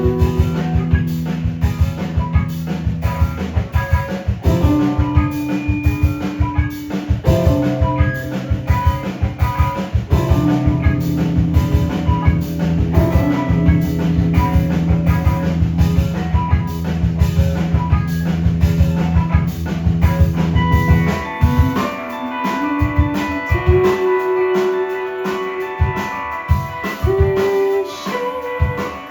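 Live rock band playing: electric guitar over a driving drum kit and bass. About three quarters of the way through the low end drops out, leaving guitar notes over lighter drumming.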